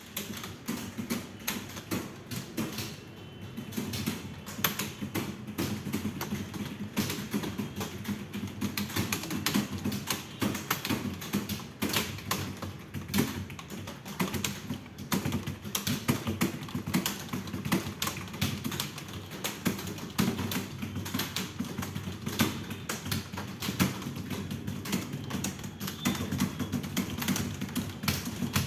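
Fast, continuous typing on a computer keyboard: a dense, unbroken run of keystrokes, several a second, as in a timed typing test.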